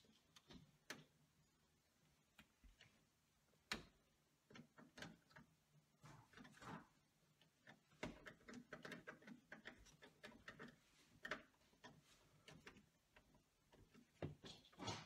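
Faint scattered clicks, taps and rustles of insulated wires being handled and pushed into a metal breaker panel, with a screwdriver working the terminal screws; the handling gets busier in the middle stretch.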